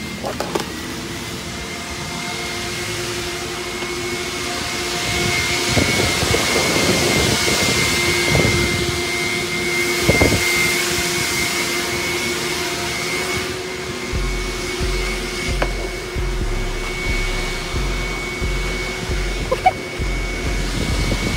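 Car-wash vacuum running steadily: a rush of air under a steady high motor whine, with a few knocks about midway.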